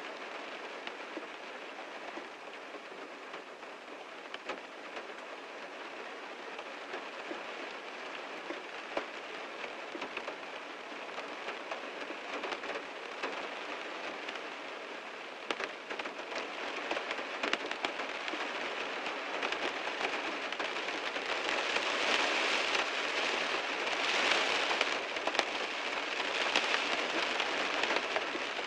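Heavy rain drumming on a car, a dense patter of drops on the roof and glass. It grows heavier about halfway through and is heaviest near the end.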